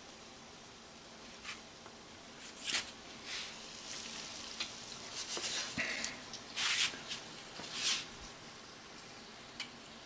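Breaded bass fillet pieces deep-frying in a pot of hot oil: a steady sizzle, with louder bursts of crackling through the middle.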